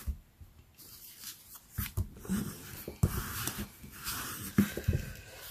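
Paper crafting handling sounds: card stock being shifted on the mat and a bone folder rubbed over a freshly glued paper panel, a light scraping and rustling broken by small taps.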